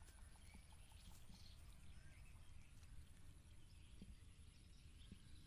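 Near silence: faint outdoor ambience, a low steady rumble with a few faint chirps.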